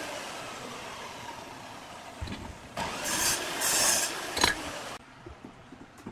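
A motor vehicle's engine running in the background, with two short scratchy bursts about three and four seconds in and a sharp tap soon after.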